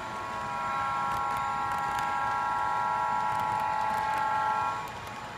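HO-scale model locomotive's TCS WowDiesel sound decoder sounding a multi-chime Nathan air horn through a small speaker: one long, steady chord of about four seconds that cuts off sharply. Model freight cars rolling on the track underneath.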